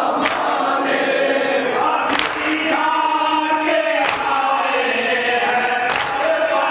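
A crowd of Shia mourners chanting a nauha lament together, with four sharp, unison matam strikes (hands beating on chests) spaced about two seconds apart, keeping time.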